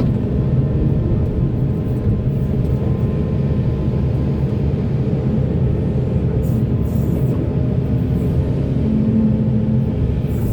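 Heavy diesel earthmoving machinery running steadily: a loud, even low engine drone, with a few faint clicks and knocks over it.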